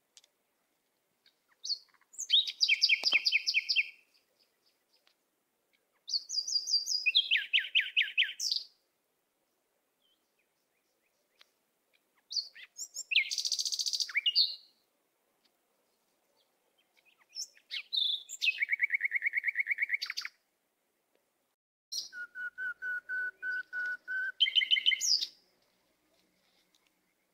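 A songbird singing in separate phrases of fast trills, each a rapid run of repeated high notes that jumps from one pitch to another partway through. There are five phrases, each lasting two to three seconds, with short silences between them.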